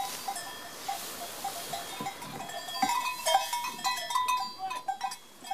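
Loose hay rustling as it is forked, then livestock bells clinking and clanking irregularly from about three seconds in as the cattle feed.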